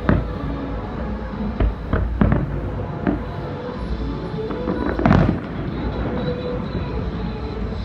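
Fireworks display: aerial shells bursting in a string of sharp bangs, irregularly spaced, the loudest about five seconds in, over a steady low rumble.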